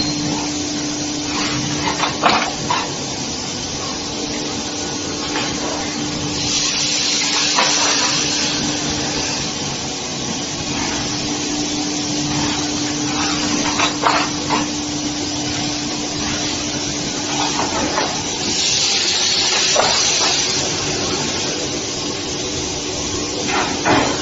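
Stainless steel wafer washing machine running: a steady mechanical hum under a hiss of spraying liquid that swells twice, with a few sharp metallic clicks and knocks.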